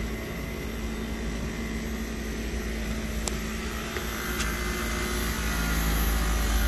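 Daikin VRV inverter compressor running with a steady, rough drone that grows louder near the end. It is a failing compressor, which the technician suspects is intermittently getting tight and drawing current spikes.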